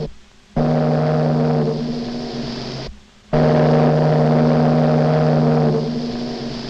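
Steamship whistle sounding two long, steady blasts with a short break between them.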